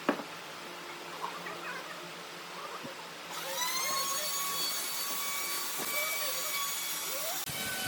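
A small electric power tool's motor running with a steady high-pitched whine of several tones, cutting in abruptly about three seconds in after a fainter hum.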